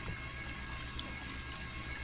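Mini washing machine's spin motor running steadily on its spin cycle, wringing the wet laundry: a constant hum with a fast, even low throb and a thin steady whine above it.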